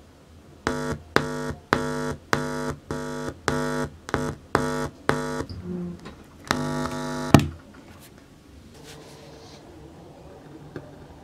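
Loud buzzing hum from a homemade 100-watt subwoofer amplifier through its speaker, cutting in and out about a dozen times at irregular intervals as the 3.5 mm plug makes and breaks contact while it is pushed into the phone's headphone socket. Every burst has the same pitch. After the plug is seated, only a faint steady hum remains.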